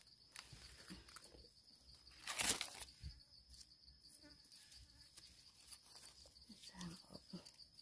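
Dry leaf litter rustling and crackling under a gloved hand picking a mushroom, with one louder crunch about two and a half seconds in. A steady high insect drone runs behind it.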